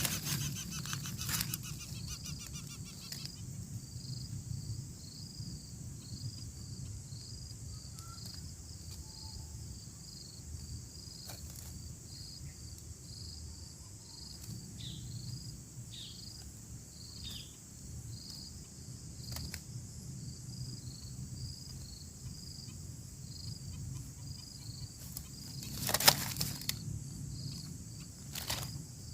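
Steady outdoor insect chorus: a constant high hiss with a regular chirp repeating a little under twice a second, over a low rumble. A few faint clicks and short falling squeaks come through, and a loud rustling burst lasting about a second sounds near the end.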